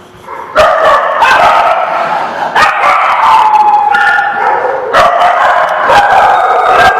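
Dogs barking and howling, starting abruptly about half a second in, with drawn-out pitched howls and whines between sharp barks.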